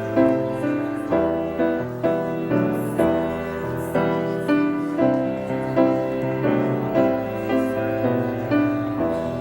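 Piano playing a slow, gentle piece, a new note or chord struck about twice a second and left to ring: the postlude closing the service.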